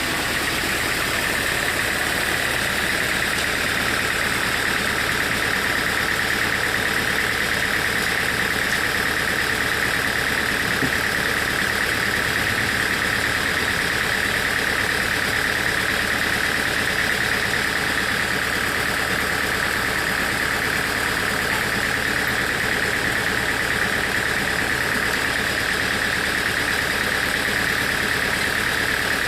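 Sawmill saw running steadily with a constant high whine over a dense mechanical noise, as of the blade running through a log.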